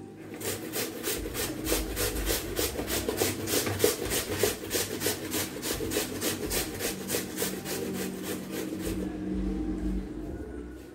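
A raw peeled potato being grated on the metal plate of a plastic box grater: a quick, even rasping rhythm of about four strokes a second that stops near the end.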